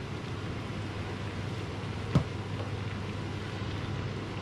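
Salt and pepper being shaken from shakers over raw chopped vegetables in a pan: a soft sound under a steady hum and hiss, with one sharp click about two seconds in.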